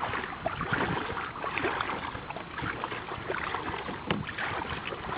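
Sea water splashing and sloshing around a kayak as it is paddled, in irregular splashes.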